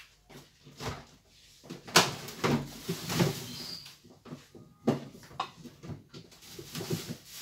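Short knocks and clunks of kitchenware being handled, about half a dozen spread over several seconds, the loudest about two seconds in.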